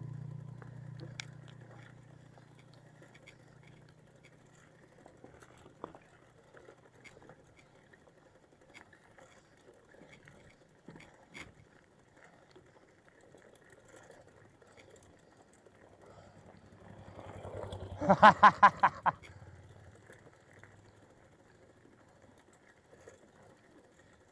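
Faint ticking and clicking from a bicycle on the move, after a low vehicle hum fades out over the first few seconds. About eighteen seconds in, noise builds and a quick run of about eight loud pitched pulses sounds, then fades.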